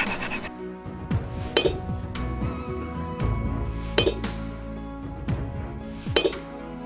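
Background music with steady held notes, cut by three sharp clinking strikes about two seconds apart.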